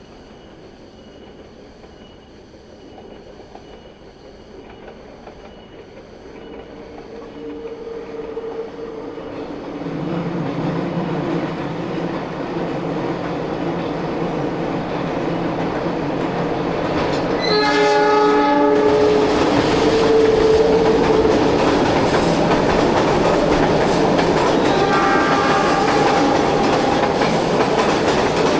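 Diesel-hauled passenger train approaching and getting steadily louder, its engine running with a steady hum. About 17 seconds in the locomotive sounds its horn, a short multi-tone blast, and the train then rolls by loudly with wheels clattering over the rail joints.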